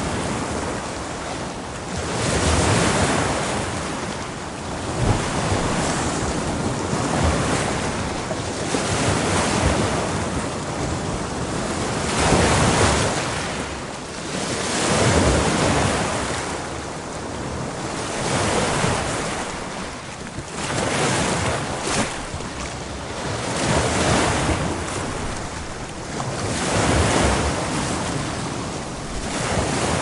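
Ocean waves breaking, a continuous rush of surf that swells and ebbs every few seconds.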